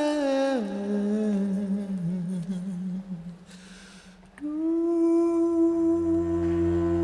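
Male voice singing slowly and softly, a long phrase sliding downward and trailing off to near quiet about three seconds in. A little over four seconds in, a new note starts and is held steady, and near the end a low sustained tone comes in underneath it.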